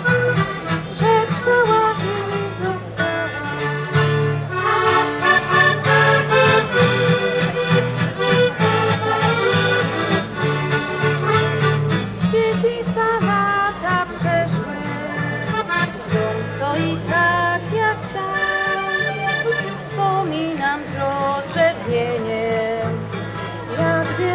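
Instrumental music, with a melody moving over steady held bass notes and no voice.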